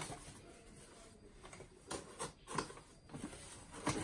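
Cardboard shipping box being opened by hand: a few faint, short rustles and scrapes of the flaps and packing, a cluster about two seconds in and another near the end.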